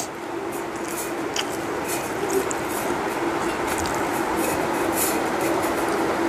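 A steady hum over a constant hiss, with scattered small clicks and smacks of someone eating rice by hand from a steel plate.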